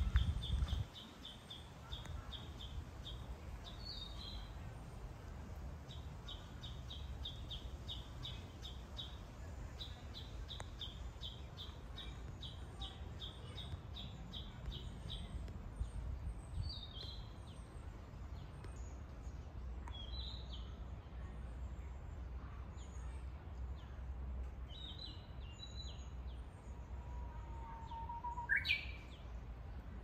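Forest birdsong: a bird repeats a rapid high note, several times a second, through the first half, with scattered chirps after it. Near the end a Japanese bush warbler sings its 'hoo-hokekyo': a long low whistle, then a quick rising flourish. A low thump comes at the very start, over a steady low rumble.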